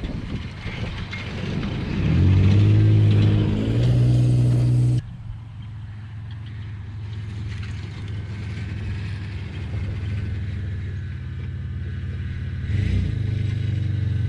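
1998 Toyota 4Runner's engine revving up under acceleration, then, after an abrupt drop about five seconds in, running at a steadier, lower level while driving, with a brief surge near the end.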